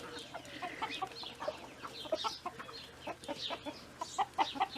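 A flock of chickens clucking over freshly scattered feed: many short clucks overlapping throughout.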